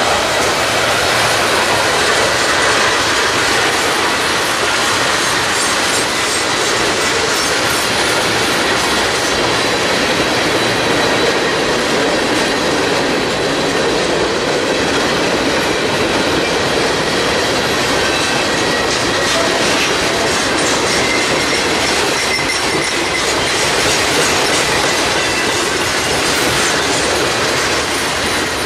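Freight train cars rolling past close by: a loud, steady clatter and rush of steel wheels on rail, with a faint thin high tone running through it.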